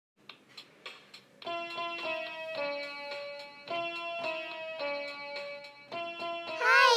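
Music: a short melody of plucked-string notes after a few soft ticks. Near the end a loud cat meow with a wavering pitch begins.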